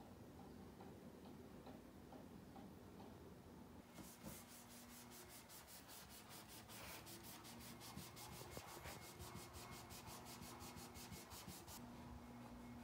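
Faint cloth rubbing on a desktop, quick even scrubbing strokes starting about four seconds in and stopping shortly before the end, over a low steady hum.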